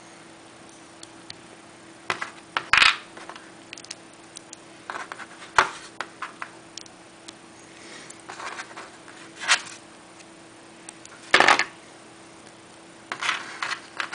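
Small LEGO plastic pieces clicking and rattling between the fingers as an oxygen-tank piece is fitted onto a LEGO minifigure, with scattered sharper clicks, the loudest about three seconds in and again about eleven seconds in.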